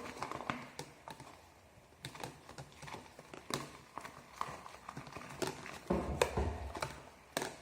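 Irregular light taps and clicks, a few a second, with a dull low bump about six seconds in.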